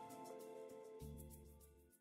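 Quiet background music fading out: held notes, with a low bass note coming in about halfway through, dying away at the end.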